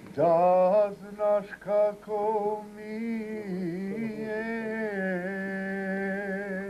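A man singing solo and unaccompanied: a few short phrases, then one long held note from about three seconds in.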